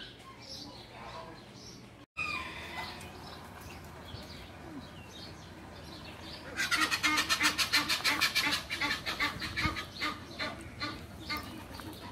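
Domestic fowl calling in an aviary. About six and a half seconds in, a loud, rapid run of repeated calls starts and goes on with short breaks.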